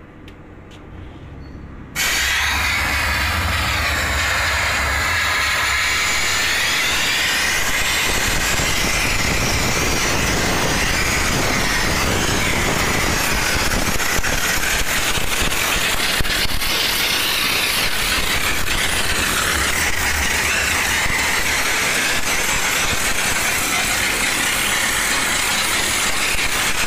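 Steam car-wash machine's steam gun letting out a jet of steam: a loud, steady hiss that starts suddenly about two seconds in, with a low rumble underneath.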